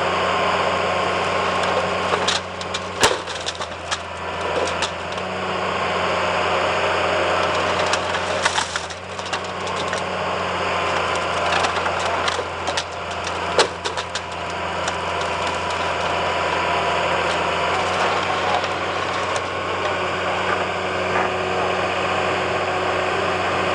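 Excavator with a demolition crusher: its diesel engine runs steadily while the jaws break material, giving clusters of sharp cracks a couple of seconds in, again around nine seconds, and between about eleven and fourteen seconds.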